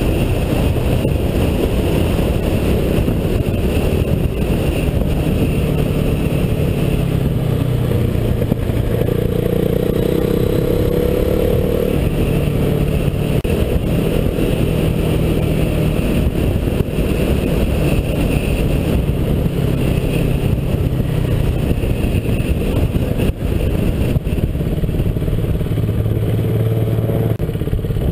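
KTM RC 390's single-cylinder engine running under way, with the engine note climbing for a few seconds about a third of the way in as the bike accelerates. A steady rush of wind on the bike-mounted microphone runs under it.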